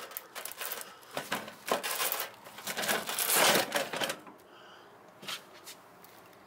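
Hook-and-loop (Velcro) strips ripping apart as a stainless steel trash can is pulled up off a van floor step: a run of clicks and rips, the longest and loudest about three seconds in, ending about four seconds in.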